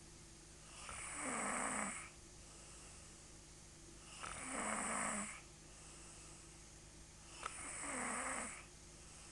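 A woman snoring loudly in her sleep: three long snores about three seconds apart, each lasting a little over a second.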